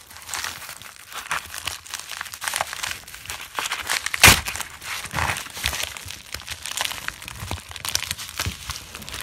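Crinkling and tearing of a mailing package's wrapping as it is handled and pulled at by hand, irregular crackles throughout, with one loud sharp crack about four seconds in.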